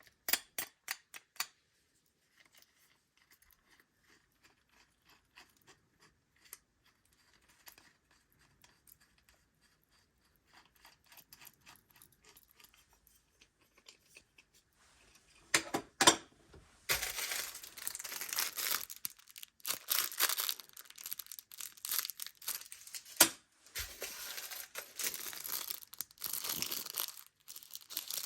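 Packaging of a diecast model airliner being unwrapped by hand: a quick run of sharp clicks at the start, faint rustling and ticks, then from about halfway on loud crinkling and tearing of the wrapping, with a short break near the three-quarter mark.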